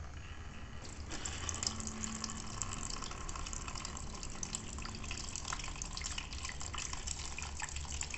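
Old coolant pouring from a loosened drain bolt on a Yamaha Fazer 600's engine and splashing into a plastic container, draining the cooling system for a fluid change. The stream gets heavier and louder about a second in, then runs steadily with a patter of small splashes.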